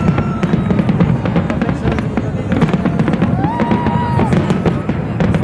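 Fireworks display: aerial shells bursting in a quick, continuous run of sharp cracks and crackles.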